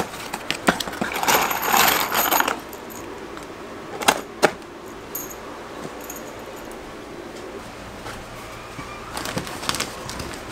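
Loose metal exterior screws rattling and clinking inside a cardboard box as it is handled and opened, followed by two sharp knocks about four seconds in.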